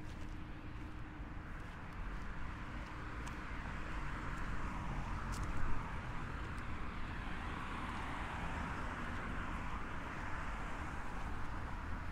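Street traffic: car tyre and engine noise from a nearby road, swelling through the middle as traffic passes. There is one sharp click about five and a half seconds in.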